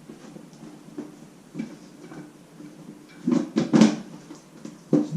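Hands handling and pushing plastic parts and wiring into place on a motorcycle's tank area: a few light knocks and rustles, then a cluster of louder clunks about three and a half seconds in and one more near the end.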